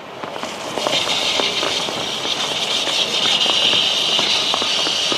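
Emery paper rubbed against the face of a car's front brake disc, a steady scraping hiss that starts about half a second in. The disc is being hand-sanded to clean up its scored face instead of being machined, after pads worn down to the backing.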